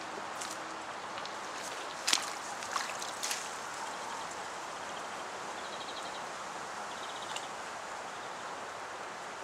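Carp rod and reel being handled over a steady outdoor hiss: a few sharp clicks about two to three seconds in, then two short runs of fast, even ticking around six and seven seconds.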